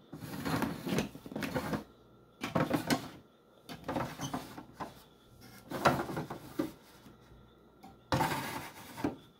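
Coffee pod storage drawer being slid in its housing, about five short bursts of sliding and rattling with clicks.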